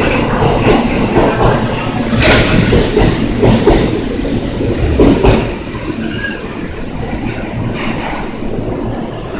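Kintetsu limited express train pulling out past the platform, its wheels clacking over the rail joints as the cars pass close by. The noise drops off about halfway through as the train draws away.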